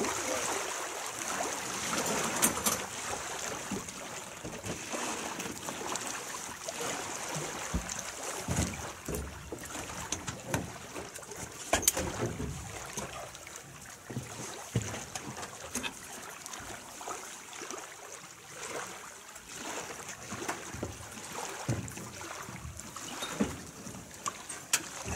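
Lake water lapping and splashing around a moored floatplane's floats, with scattered knocks and thumps as people step on the rocks and climb onto the float, over light wind.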